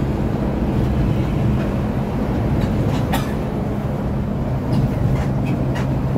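Intercity bus on the move, heard from inside the cabin: a steady engine drone and road rumble, with a few faint clicks and rattles.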